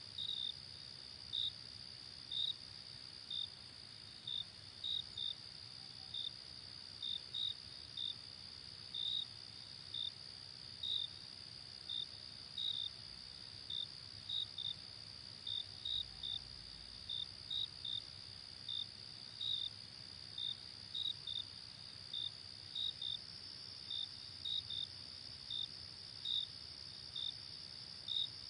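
Night insect chorus of crickets: a steady high trill, with short, louder chirps repeating irregularly about twice a second.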